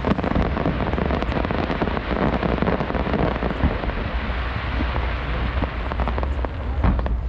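Fireworks crackling: a dense, rain-like patter of countless small pops from crackle bursts, with a few sharper bangs near the end.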